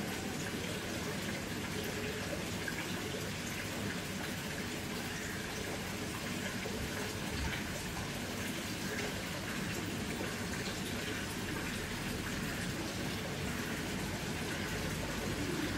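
Steady hiss of falling water, even and unbroken throughout.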